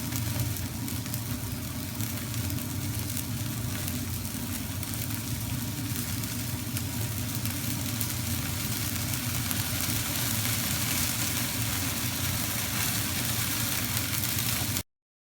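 Lamb shish kebabs sizzling on a gas-fired mangal grill, over the steady rush of its burners running on full. The sound cuts off suddenly near the end.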